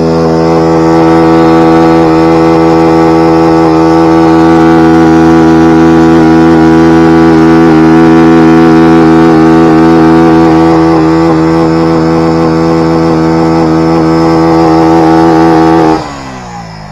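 Yamaha R15 V2's single-cylinder engine held at high, steady revs for a burnout, loud throughout. Near the end the throttle is shut and the revs fall away quickly.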